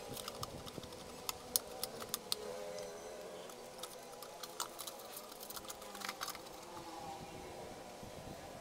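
Scattered light clicks and taps of a screwdriver and fingers on the wiring terminals and sheet-metal base of an electric rice cooker, most of them in the first few seconds.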